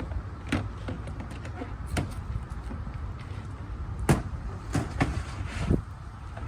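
About five separate knocks and clunks as RV sewer hose gear is handled and stowed, the loudest about four seconds in, over a steady low rumble.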